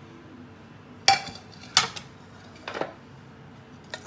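Metal kitchenware clinking against an aluminium pressure cooker pot: four sharp clinks with a short ring, roughly a second apart, the last as a frying pan is tipped against the pot.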